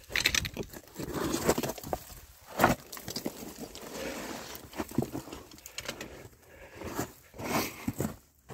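Footsteps crunching and scraping on loose dark volcanic cinder and rock, in an uneven scramble, with one sharper scrape about two and a half seconds in.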